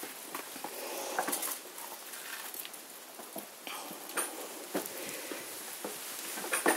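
German shorthaired pointer puppies scampering and play-fighting on concrete paving slabs: an irregular patter and scuffing of claws and paws, with a sharper clatter near the end.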